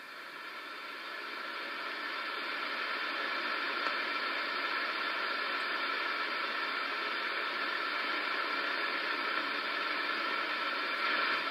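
Shortwave receiver hiss from an Icom IC-7000 transceiver's speaker: steady static with no signal on the frequency. It swells up over the first couple of seconds, then holds even.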